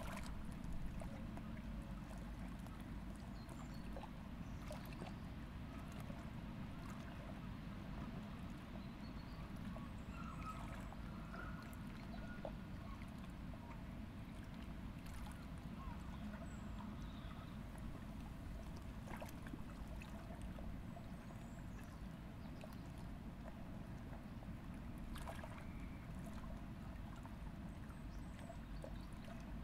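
Riverside outdoor ambience: a steady low rumble with faint, scattered bird calls and a few soft clicks.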